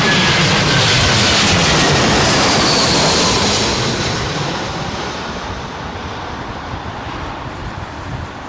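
Airbus A350-900 on final approach passing close by, its Rolls-Royce Trent XWB engines a loud jet rush with a whine that falls in pitch. The sound begins to fade after about four seconds as the aircraft moves away.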